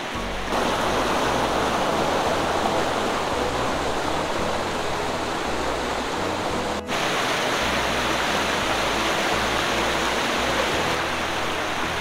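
Mountain stream rushing over rocks in shallow rapids, a loud, steady rush of water, with background music underneath. The sound drops out for an instant just before seven seconds in, then the water goes on.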